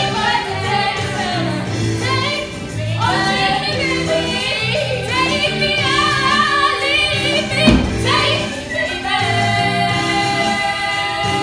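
Two women belting a musical-theatre duet over instrumental accompaniment with a steady bass line. A single thump lands a little under eight seconds in.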